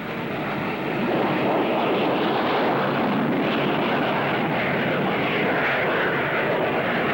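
Aircraft engine noise, swelling over the first second and then holding steady and loud.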